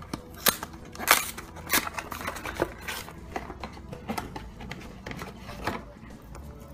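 Cardboard Kinder Surprise box being opened by hand and the foil-wrapped eggs inside handled: irregular crinkles, clicks and taps, a few of them sharp.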